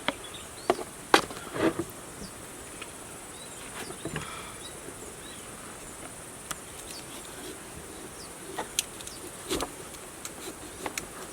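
Steady high-pitched chirring of insects, with scattered sharp clicks and knocks over it.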